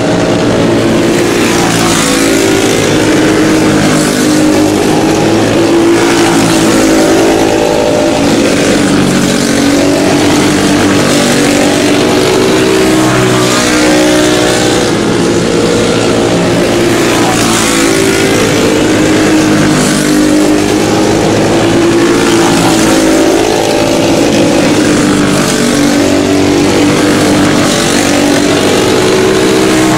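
A pack of racing karts with Briggs & Stratton Animal single-cylinder four-stroke engines running at speed together. Several engine notes overlap, rising and falling as the karts accelerate and back off around the oval.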